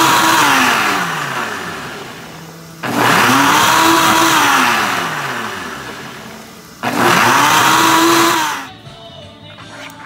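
Countertop blender puréeing green chile sauce, run in three pulses of a few seconds each: the motor runs at full speed, then its pitch sags as it winds down before being switched on again. The last run cuts off sharply about a second and a half before the end.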